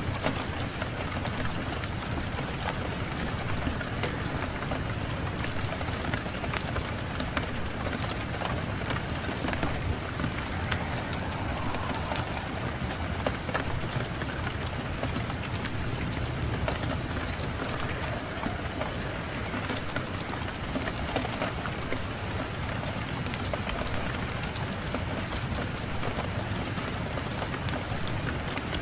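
Fireplace wood fire crackling, with many sharp little pops over a steady rushing of wind.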